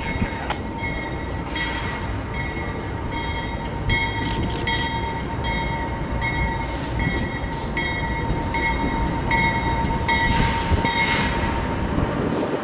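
Norfolk Southern diesel freight locomotive approaching, its engines rumbling low while its bell rings steadily, about three strokes every two seconds.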